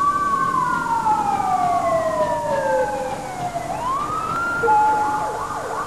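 Emergency vehicle siren wailing: one long falling tone that swings back up about three and a half seconds in, then switches to a fast yelp near the end. A brief steady tone sounds just before the yelp.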